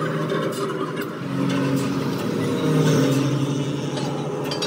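Hydraulic press running as it re-arches a truck leaf spring: a steady machine hum that steps up and down in pitch every second or so, with a short metallic click near the end.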